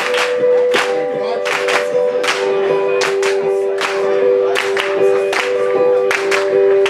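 Live band song opening: a singer holding long notes over sharp handclaps that keep a steady beat about every three-quarters of a second, with the audience clapping along.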